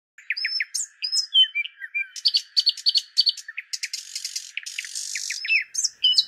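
Small songbirds chirping and twittering in many quick, high, repeated notes and short falling whistles, several birds at once.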